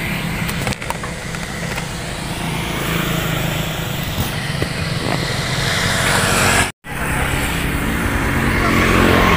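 Small motor scooter engine running steadily, with a momentary cut to silence about seven seconds in.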